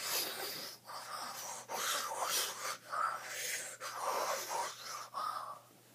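A boy breathing heavily close to the microphone: about five loud, breathy strokes roughly a second apart, which stop shortly before the end.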